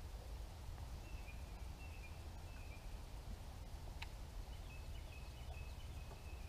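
Faint songbird calls, short whistled notes and trills in two runs, over a steady low rumble, with one sharp click about four seconds in.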